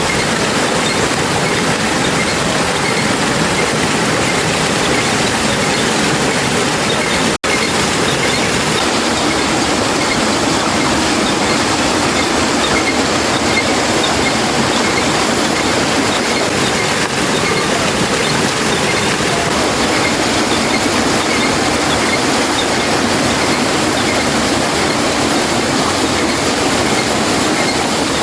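Loud, steady rush of flowing water, as from a hydraulic ram pump and water-wheel setup, with a brief break about seven seconds in.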